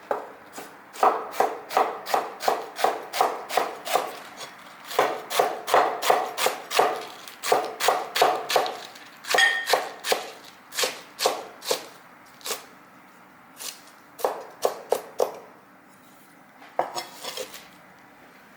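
Knife chopping cabbage on a cutting board: quick runs of sharp strokes, about three to four a second, broken by short pauses.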